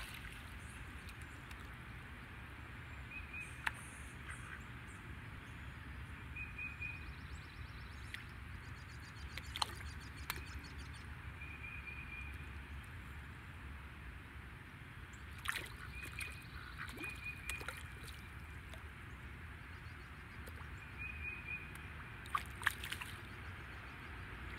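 Lake water lapping and sloshing around a golden retriever wading in it, with a few sudden small splashes as it moves, over a steady low rumble. Short high chirps come back every few seconds.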